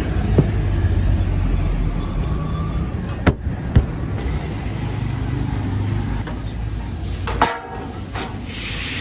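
A vehicle engine running with a steady low rumble, broken by a few sharp clicks or knocks; the rumble drops away about three quarters of the way through.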